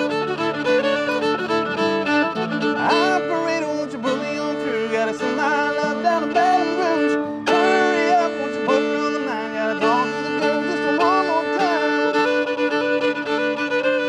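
Fiddle playing a lively, sliding instrumental break over acoustic guitar strumming chords: a country-bluegrass fiddle tune.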